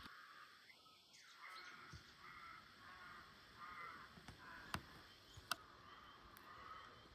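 Faint cawing of a crow-like bird: a long run of evenly spaced harsh calls. Two sharp clicks stand out a little past the middle.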